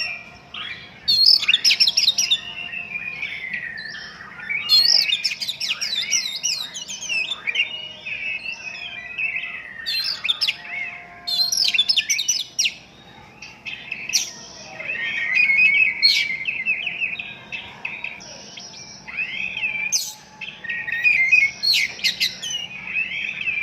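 Oriental magpie-robin (kacer) singing loudly in repeated bouts of rapid, varied phrases, mixing fast chattering runs with sweeping whistled notes and short pauses between bouts.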